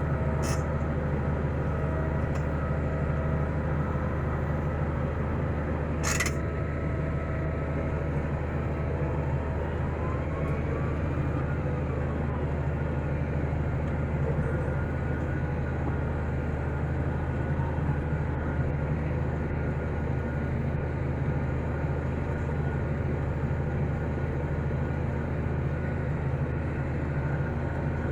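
Tractor engine running at a steady speed, a constant low drone. A single sharp click about six seconds in.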